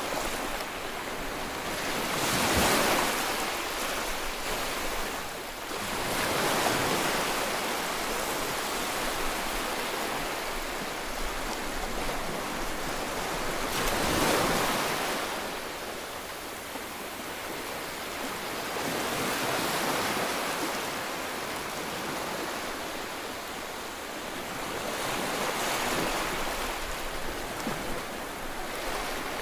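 Ocean waves: a steady rush of water that swells and falls away every few seconds.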